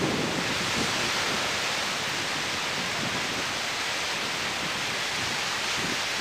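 Surf breaking and washing up a sandy beach, a steady rushing hiss of waves.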